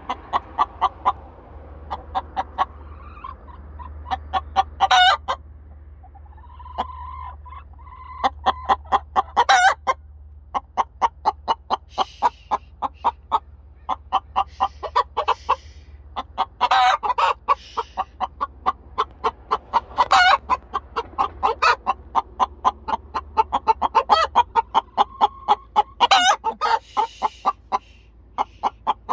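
Hens clucking in long, rapid runs, with a louder, sharper squawk every few seconds and a few drawn-out calls: an upset hen scolding another, which clucks back.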